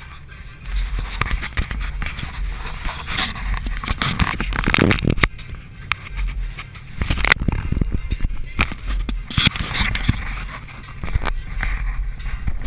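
Holden VY SS wagon's 5.7-litre V8 running with a steady low drone while driving, under irregular rustling and scraping noise close to the microphone and a few sharp clicks.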